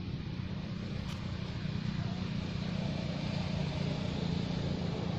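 A steady low motor hum, like an engine running without change, with a faint click about a second in.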